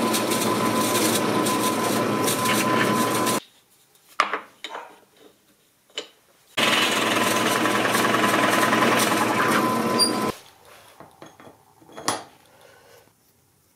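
Drill press running and boring into wood with a Forstner bit, a steady motor whine, for about three seconds, then stopping; it starts again about six and a half seconds in and runs for nearly four seconds more. Between and after the runs come a few light knocks and clicks of wood and metal being handled, with one sharper knock near the end.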